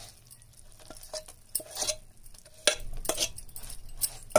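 A metal spoon stirring puffed rice into hot jaggery syrup on a plate: soft rustling and scraping, with a few sharp clinks of the spoon against the plate, more of them in the second half.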